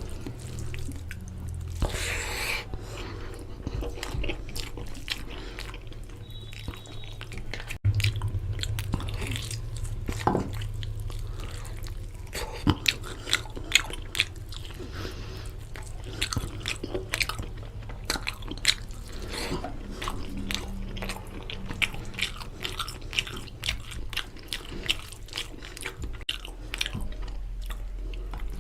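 A person chewing and biting mutton curry with rice close to the microphone, with many small wet mouth clicks and smacks throughout.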